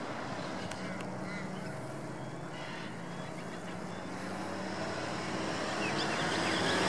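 Steady outdoor background rumble with a low hum of a distant engine, a few faint bird chirps, slowly growing louder towards the end.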